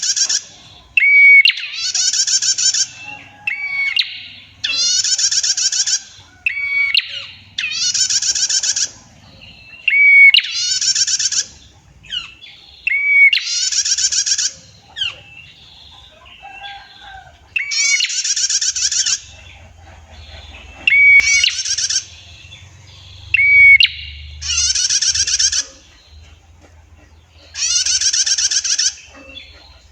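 Female prenjak (prinia) calling: a short clear note, then a loud rapid trill about a second long, repeated every two to three seconds. This is the long 'tiir' trill of a calling female.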